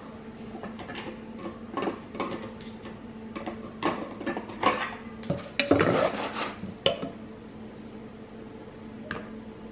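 Metal cutlery clinking and knocking against a roasting pan and dishes as roast chicken is carved and served, with a busy cluster of clatter about six seconds in, over a steady low hum.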